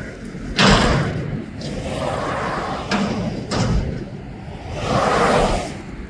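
Front-loader garbage truck emptying a dumpster: the raised metal dumpster bangs against its stops, with one loud slam about half a second in and two more about three seconds in, then a rushing noise near the end as the arms bring it down.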